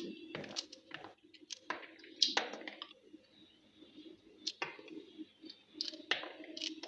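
Kitchen food-preparation sounds: irregular clicks and knocks over a low steady hum.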